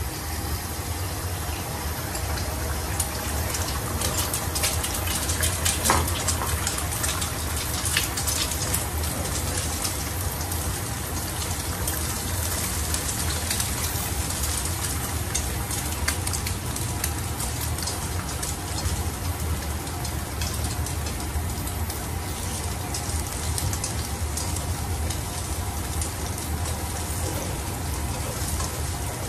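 Beaten egg sizzling and crackling as it fries in hot oil in a frying pan, over a steady low hum.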